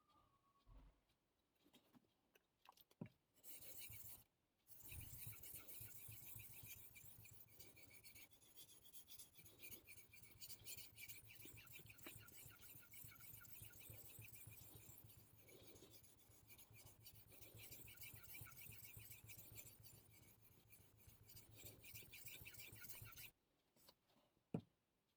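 Knife blade rubbing back and forth on a Naniwa Superstone whetstone during freehand sharpening: a brief scrape, then a long steady run of quick rasping strokes from about five seconds in that stops a couple of seconds before the end, followed by a single light click.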